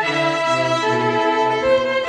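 Student string orchestra of violins and cellos bowing sustained, changing chords. It is a virtual ensemble mixed from parts recorded separately at home.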